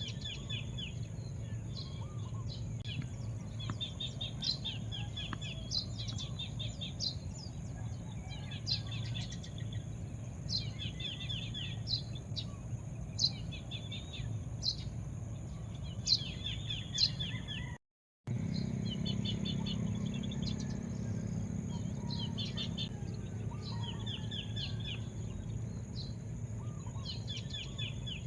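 Small birds chirping over and over in short, quick calls, over a steady low rumble. The sound cuts out completely for a moment about two-thirds of the way through.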